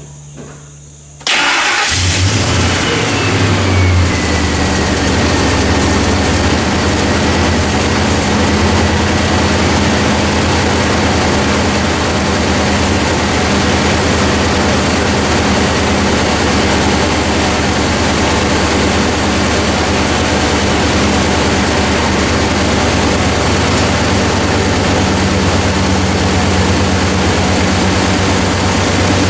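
Ford 4.6-litre V8 of a 2000 F-150 starting about a second in, then idling steadily, with a whine that falls in pitch over the first few seconds as the idle settles. This is the first start after a fuel filter change, running to push the air out of the fuel system.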